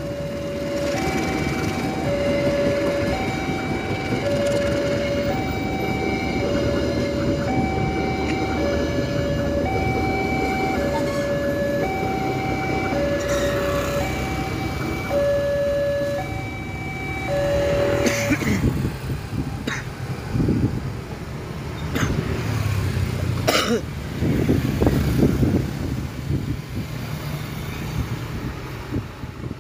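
Level-crossing alarm sounding an alternating two-tone chime, roughly one tone a second, over the rumble of passenger coaches rolling past. The alarm stops about 18 seconds in as the train clears, and road traffic, motorcycles and a truck, then moves off across the tracks with a few sharp knocks.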